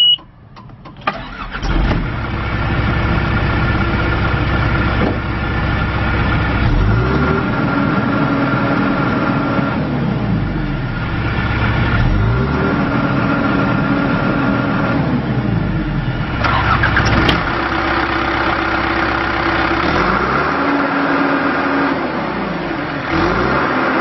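2006 John Deere 410G backhoe loader's four-cylinder diesel engine cranking and catching about a second in, then running. The engine is revved up and brought back down three times, each time holding the higher speed for a few seconds.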